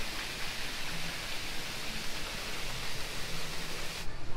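Steady, even hiss of falling water that cuts off abruptly about four seconds in.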